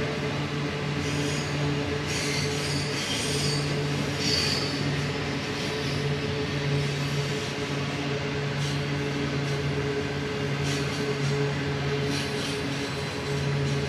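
Coal train wagons rolling steadily around a curve, with wheel squeal rising and fading in high, thin screeches now and then.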